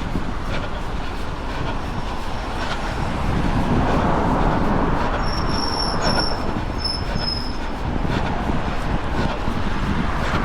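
A vehicle passing close by, its rumble swelling in the middle, with a high metallic squeal that comes and goes in several short pieces midway. Faint regular thuds of running footsteps and wind rumble on the microphone run underneath.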